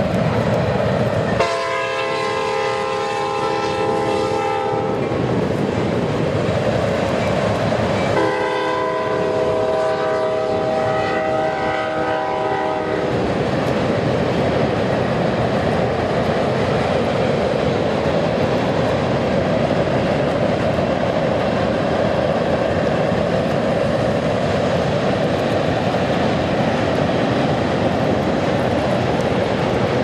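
Kansas City Southern freight locomotive's air horn sounding a chord in two long blasts, the first about a second and a half in and the second, longer one about eight seconds in. Under and after the horn, the steady rumble of the freight train rolling across a steel girder bridge.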